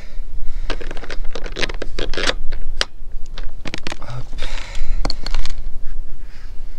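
Close handling noise: a paper towel crumpling and rubbing, with scratchy clicks and scrapes as a plastic solar-panel mounting bracket is set down and wiped on the van roof. A low wind rumble sits on the microphone throughout.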